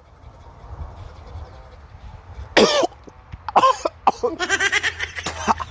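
A person coughing while brushing their teeth. A soft rasping, breathy noise runs for the first couple of seconds, then come a loud cough about two and a half seconds in, another a second later, and a drawn-out strained hack near the end.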